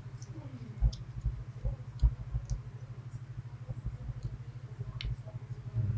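Small clicks and dull knocks of a Medeco Biaxial lock being handled and taken apart, with a sharp click about five seconds in, over a steady low hum.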